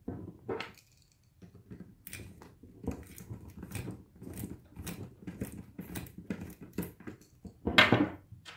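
Hand screwdriver turning a screw through a plastic facemask clip into a football helmet shell: a run of short scraping clicks, a few each second. Near the end comes a louder clunk as the screwdriver is laid on the table.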